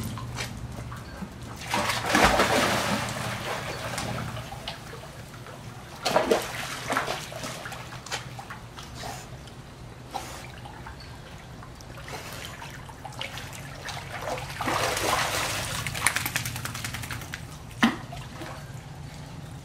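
Water splashing and sloshing in several bursts as a German Shorthaired Pointer swims, over a steady low hum, with a sharp click near the end.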